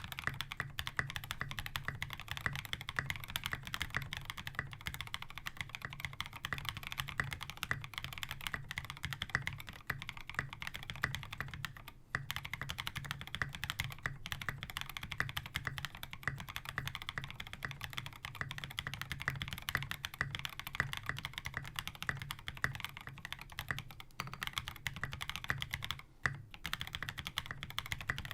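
Fast continuous typing on a mechanical keyboard with lubed Novelkey Cream linear switches in an all-POM case and plate, capped with SA keycaps, giving a dense run of muted clacks. Typing pauses briefly twice, about twelve seconds in and near the end.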